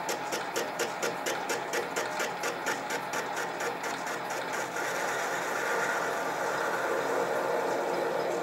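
Mini lathe taking a light facing cut on a spinning crank at about 250 rpm. The tool ticks about four times a second, in step with the spindle, then about halfway through the ticking fades into a steady cutting hiss.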